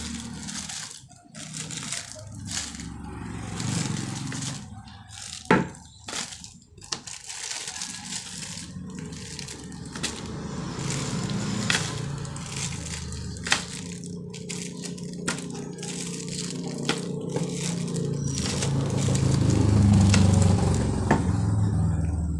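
Plastic-bagged power adapters being handled and piled, the bags crinkling and rustling, with scattered sharp clicks and knocks as the adapters knock together. A low background rumble runs beneath and grows louder near the end.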